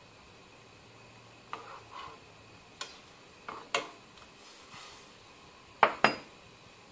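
A spoon stirring diced orange peel in water in a saucepan, scraping and clinking against the pan several times, with two louder knocks close together near the end.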